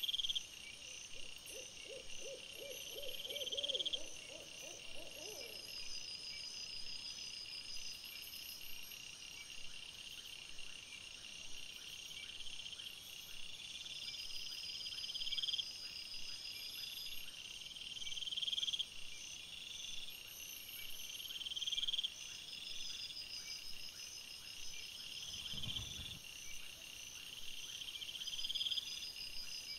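Night insects, crickets or bush-crickets, chirring steadily in high-pitched swells that rise and break off about every two seconds. In the first few seconds a low, wavering, hoot-like call runs briefly underneath, and near the end there is a single soft low thump.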